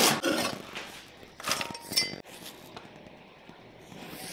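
Chinese cleaver chopping garlic chives on a bamboo cutting board: one loud chop at the start, then lighter, rapid chops. A short clink rings out about two seconds in.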